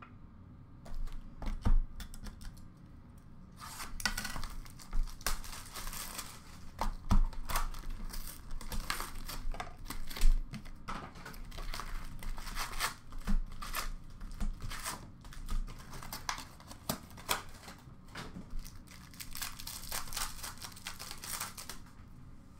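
A sealed 2022-23 Upper Deck O-Pee-Chee Platinum hockey box being torn open by hand, with continuous wrapper crinkling and cardboard tearing. Sharp knocks come about two seconds in and twice more in the middle as the box and its packs are handled and set down on the glass counter.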